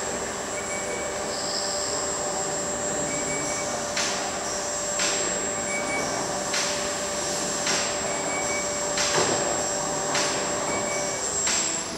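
Automated greenhouse bench system running: electric drives give a steady hum with a held whine that stops near the end, and light knocks come about once a second as the bench and gantry move.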